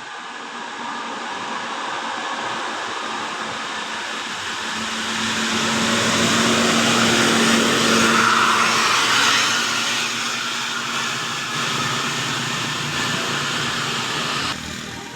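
A large bus driving past close by: engine and tyre noise swelling to a peak midway, with a steady engine hum, then easing off. The sound cuts off sharply near the end.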